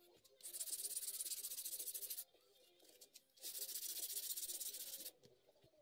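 A wooden straight-razor scale rubbed back and forth on sandpaper by hand: two spells of quick, rasping sanding strokes, each lasting under two seconds, with a short pause between them.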